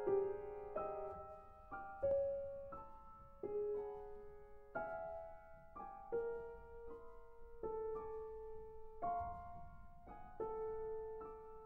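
Solo piano playing slow, separate chords in contemporary classical style, a new chord struck every second or so and each left to ring and fade.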